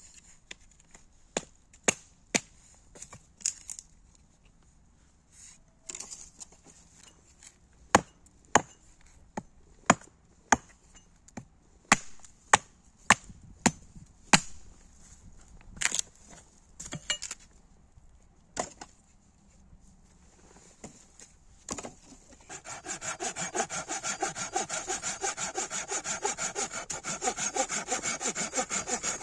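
Sharp wooden knocks and cracks at irregular intervals, roughly one a second, then about three-quarters of the way through a saw starts cutting firewood with quick, steady back-and-forth strokes.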